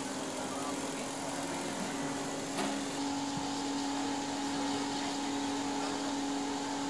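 Steady mechanical hum with a constant droning tone; a short click comes about two and a half seconds in, and a higher steady tone joins just after.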